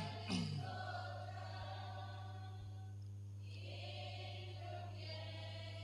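A congregation faintly singing a Tamil doxology in long held notes, in two phrases with a short break between them, over a steady low electrical hum.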